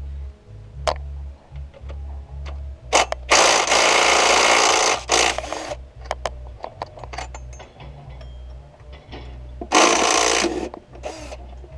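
Handheld cordless power tool run against bolts at the front of an engine, in two bursts: a long one of about two and a half seconds, then a shorter one near the end. Small clicks and knocks of handling come between the bursts.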